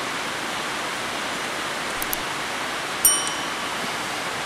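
Steady hiss of rain on a tin roof. About three seconds in, a sharp metallic ping rings briefly, a piece of metal striking metal.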